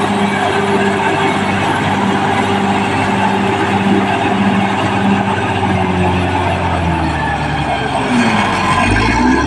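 Caterpillar D6R crawler bulldozer's diesel engine running hard under load. About six seconds in its note sags lower, then begins to pick up again near the end.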